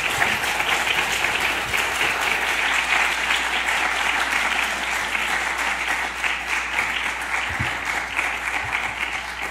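Lecture-hall audience applauding at the end of a talk, a dense clapping that fades out near the end.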